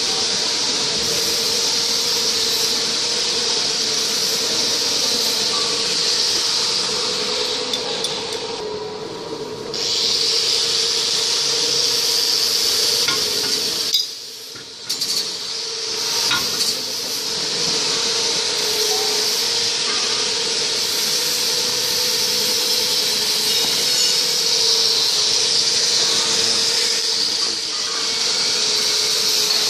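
Steady machine hiss with a constant hum from a running shrink-wrapping machine, with a few light clicks and taps; the sound drops out briefly about halfway.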